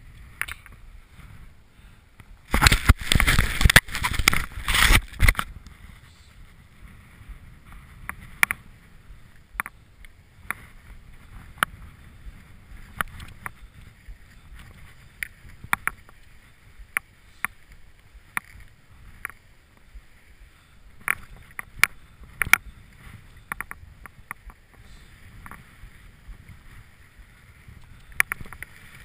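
Skis sliding downhill on snow with a low rush of wind on the camera microphone, a loud rushing burst for about three seconds early in the run, and scattered sharp clicks and knocks throughout.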